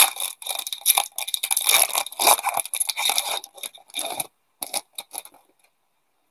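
Silver foil wrapper of a 1997-98 SPx hockey card pack being torn open and crinkled by hand, a run of crackling tears and crinkles that stops about five and a half seconds in.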